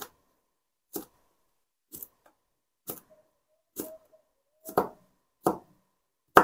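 Kitchen knife cutting a snow pear into thick strips on a cutting board: single chops about once a second, coming quicker and louder over the last two seconds.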